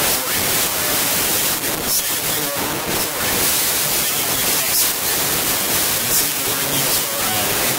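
A loud, steady hiss of noise.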